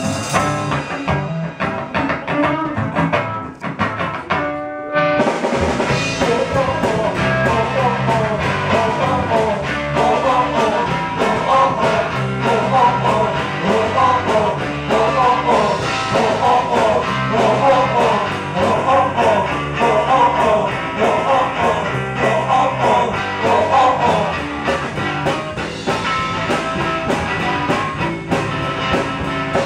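Live rock band playing an instrumental intro on electric guitar, bass guitar and drum kit. It opens sparse, and the full band comes in about five seconds in.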